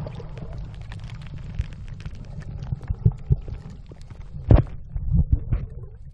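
Underwater sound picked up by a phone's microphone: a steady low rumble with scattered faint clicks and several muffled knocks, the loudest about four and a half seconds in.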